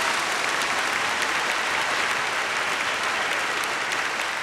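Crowd applause, a dense steady clatter of many hands clapping, easing off near the end.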